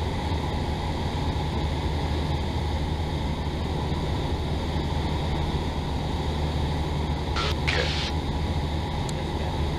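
Steady drone of a Cessna 172's piston engine and propeller in flight, heard inside the cabin. Two short bursts of hiss come about seven and a half seconds in.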